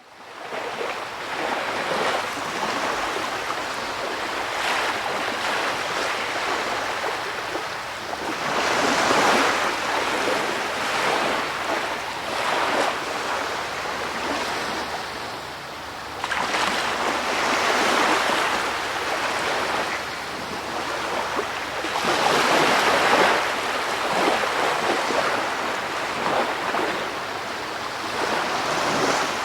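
Ocean surf: waves rushing in and drawing back, swelling to a peak every several seconds.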